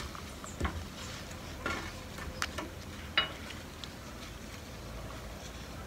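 Short rustles and light clicks from a plastic nursery pot and damp potting soil as a young Monstera adansonii is worked out of the pot, a handful of them in the first three seconds.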